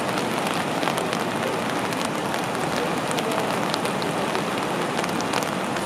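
Whitewater of the Potomac River's Great Falls pouring over rock ledges: a steady, even rush of falling water.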